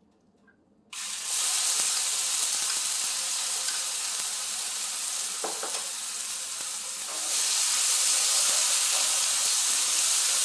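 Spice paste dropped into hot olive oil in a skillet, sizzling suddenly about a second in and frying steadily, with one brief knock midway and the sizzle growing louder near the end.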